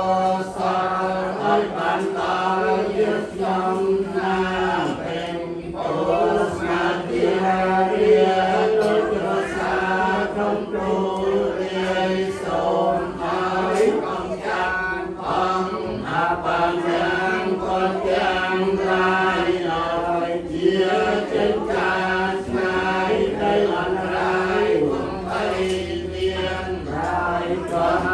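A group of voices chanting Buddhist verses in unison, a steady near-monotone recitation.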